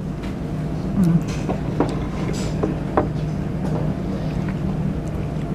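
Steady low mechanical hum, with a few light clicks of a fork against a plate and a bread basket, the loudest about a second in and about three seconds in.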